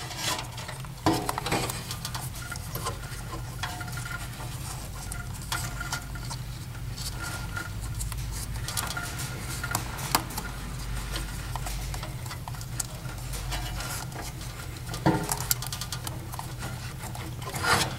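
Electrical tape being pulled off the roll and wrapped by hand around a crimped wire connector: a crackly rustle with scattered small clicks and handling noise.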